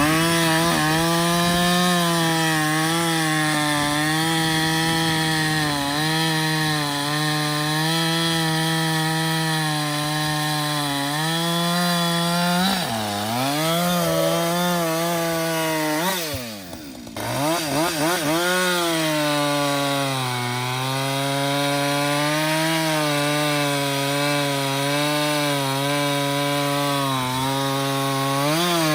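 Gasoline chainsaw cutting wood under load, the engine held at a steady high pitch. Near the middle the revs sag and recover twice.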